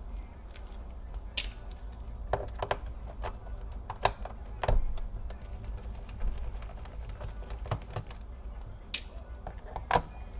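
A small screwdriver backing screws out of a laptop's plastic bottom case: irregular light clicks and ticks, with a few sharper clicks, over a low steady hum.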